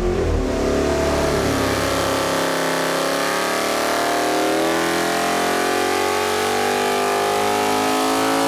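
Carbureted 427 cubic inch Ford Windsor small-block stroker V8 making a wide-open-throttle dyno pull at 32 degrees of ignition timing. Its pitch climbs steadily as the revs sweep upward, and it is still rising at the end.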